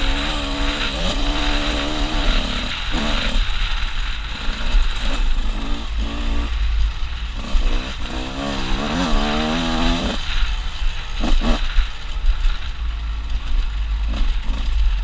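Honda CR125 two-stroke dirt bike engine revving up and down while riding a rough dirt trail, with heavy wind rumble on the helmet microphone. A few sharp clattering knocks come about two-thirds of the way through.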